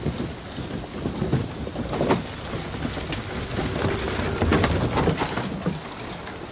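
E-bike tyres and the wheels of a towed cabin trailer rolling over dry leaves and twigs on a forest trail: a continuous low rumble strewn with crackles and snaps.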